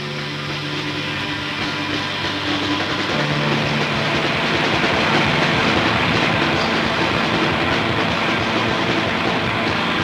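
Noisy rock music: a dense wash of distorted guitar noise that swells over the first few seconds, heard through a lo-fi FM radio broadcast taped to cassette.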